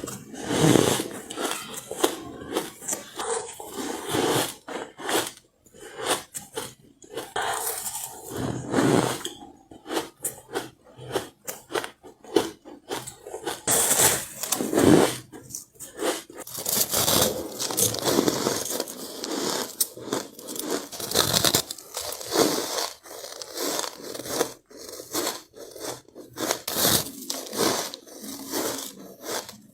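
Close-up crunching and chewing of soft, powdery ice: repeated irregular bites with crisp crackle and scraping, a few louder bites standing out.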